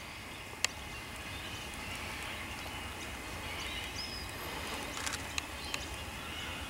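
Quiet outdoor bush ambience with a brief bird whistle about four seconds in, and a few sharp clicks: one loud click about half a second in and a small cluster around five seconds.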